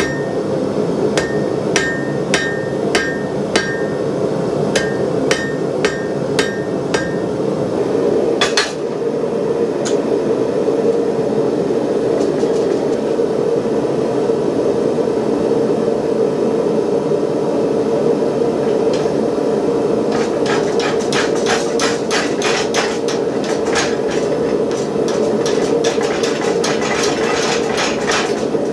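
Hand hammer striking steel on an anvil, each blow ringing: about one stroke a second for the first several seconds, a single heavy blow a third of the way in, then quick light taps, several a second, through the last third. A gas forge burner's steady roar runs underneath.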